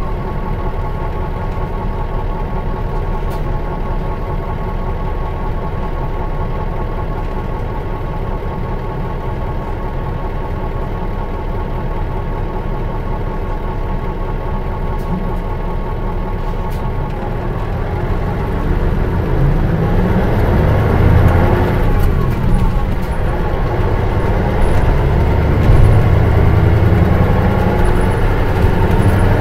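Mitsubishi Fuso Aero Bus KL-MS86MP's V8 diesel engine heard from inside the coach, running steadily for the first half, then about 18 seconds in growing louder as the bus accelerates, the engine note rising and falling through manual gear changes.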